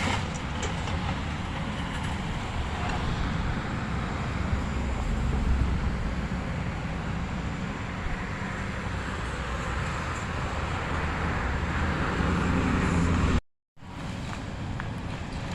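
Demolition excavator's diesel engine running steadily, a low rumble under a noisy haze. The sound drops out for a split second near the end.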